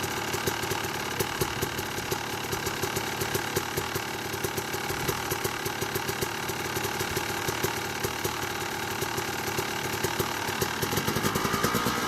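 Two-stroke engine of a 2008 Yamaha YZ250 dirt bike, bored out to 285 cc and fitted with an APT SmartCarb, idling unevenly with sharp irregular pops. The engine is revved briefly near the end.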